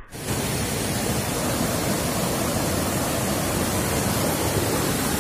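Whitewater rapids of a fast river rushing over boulders: a steady, even noise that cuts in suddenly at the very start.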